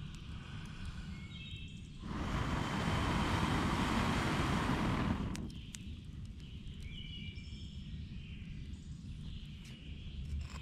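Someone blowing steadily on campfire embers for about three seconds to rekindle them; a loud rushing breath on the microphone that starts about two seconds in and stops sharply, after which the sticks catch flame.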